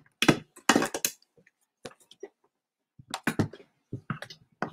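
Items being set down and shifted on a table: a series of irregular knocks and clatters, with a short lull in the middle.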